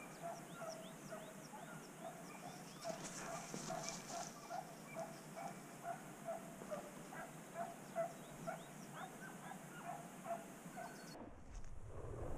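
Hunting dog barking in a steady run of short yelps, about two a second, faint and distant: the chop of a hound running a rabbit's trail. The barking stops near the end.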